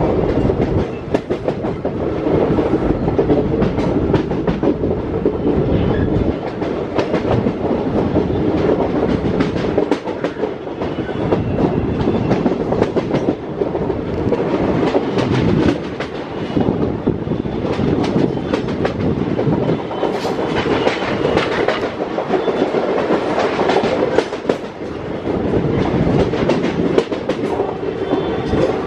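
Intercity express train running at speed, heard from inside a passenger coach: a steady rumble of the wheels on the rails with a continual rapid clatter over the rail joints.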